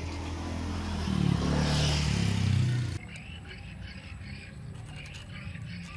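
A motor vehicle's engine rumbling close by, swelling louder and then cut off abruptly about halfway through. After that, quieter crunching clicks of a cat chewing dry kibble.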